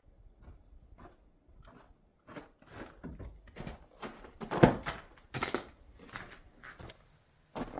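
Footsteps crunching in fresh snow, a string of uneven steps that grow louder about two seconds in.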